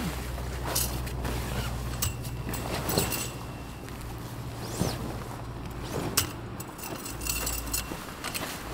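Footsteps with scattered light knocks and metallic clinks, a couple of them ringing briefly, over a steady low hum, as a tent is pitched.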